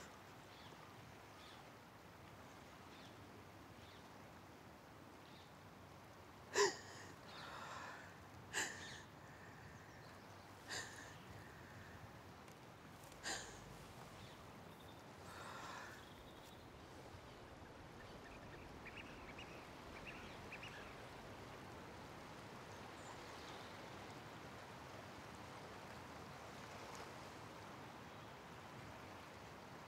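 Four short, sharp sounds a couple of seconds apart, a few of them followed by a brief fainter sound, over faint outdoor ambience.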